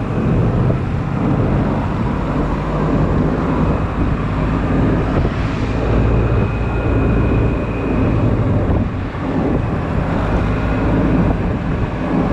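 Honda Silver Wing scooter engine running steadily while riding in slow traffic, a loud low rumble with wind buffeting the microphone.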